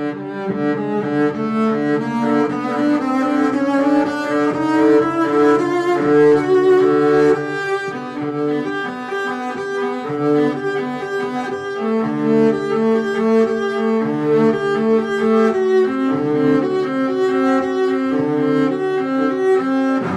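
Background music with bowed strings, cello and double bass, playing sustained notes.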